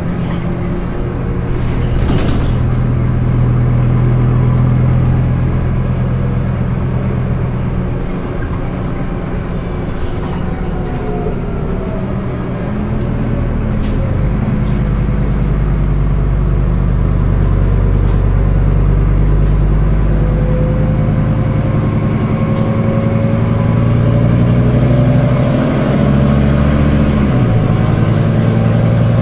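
Scania N320UB city bus's diesel engine running under changing load, its note shifting several times as the ZF automatic gearbox changes gear, with a slowly rising whine in the last several seconds.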